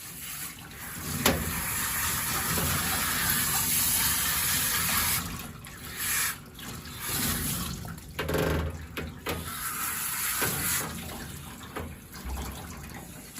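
Shower sprayer running, water spraying onto a dog's shampooed coat to rinse out the soap. The steady hiss of the spray breaks off briefly several times in the second half.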